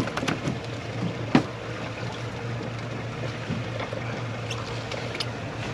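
Small fishing boat on the water: a low steady hum with water washing against the hull, and a few light knocks, the sharpest about a second and a half in.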